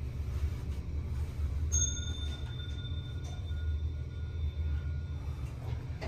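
Hitachi lift car running with a steady low hum. About two seconds in, a high electronic chime sounds and rings on for about three and a half seconds, then the car doors start to slide open near the end.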